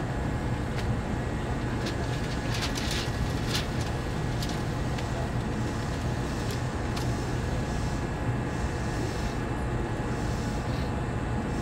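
Steady low hum of an Osaka Metro Chuo Line subway train standing at a station platform, its onboard equipment running while the train waits. A few faint clicks come about three seconds in.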